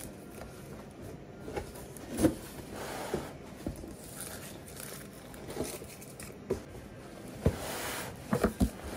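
Cardboard shipping box being opened and handled: flaps folded back and packing rustled, with scattered knocks against the box and table, the loudest about two seconds in and a quick run of three or four near the end.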